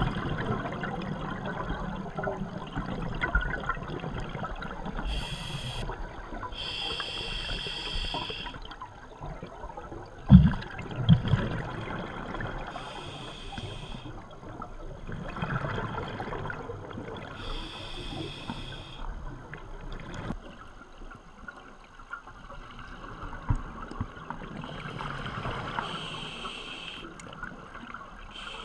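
Scuba diver breathing through a regulator underwater: a hissing inhalation every few seconds, with the gurgle and rumble of exhaled bubbles between. Two thumps about ten seconds in.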